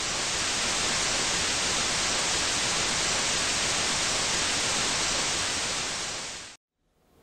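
Television-static hiss: a steady, even rush of white noise that eases off and stops shortly before the end.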